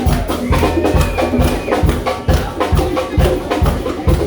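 Live band music with a steady drum beat and a held high instrument tone over it.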